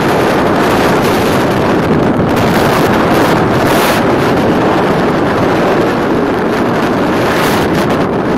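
Steady, loud wind buffeting the microphone of a camera on a motor scooter riding at speed, mixed with the scooter's running and road noise.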